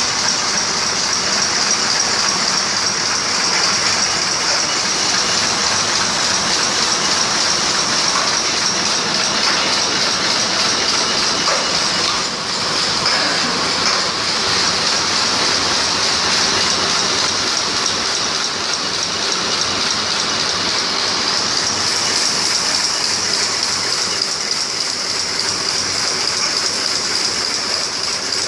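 ST-110 brush tufting machine running steadily while tufting plastic brush handles: its electric motor and belt-driven flywheel keep up a loud, continuous mechanical clatter with a strong high hiss over it.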